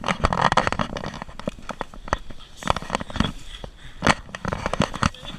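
A string of irregular sharp cracks and pops, a dozen or more, with the loudest about a second in and about four seconds in.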